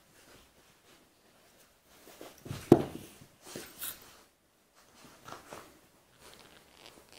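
A golden retriever and a black Labrador puppy play-fighting, making irregular short scuffling, snuffling and mouthing noises. The loudest is a sharp knock about two and a half seconds in.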